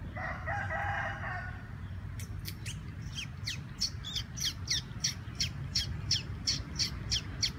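A bird calling in a fast series of short, high, falling chirps, about three a second, starting about two seconds in. Before it, a pitched call lasts about a second and a half, with a low steady rumble underneath throughout.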